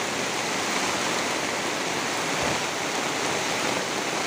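Muddy floodwater rushing down a village lane in a flash flood, a steady, unbroken rush of fast-flowing water.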